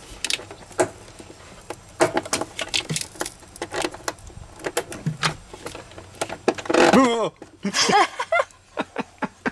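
Metal clicks and clinks of cable ring terminals and nut hardware being handled and pulled off a battery terminal stud. A short burst of voice comes about seven seconds in.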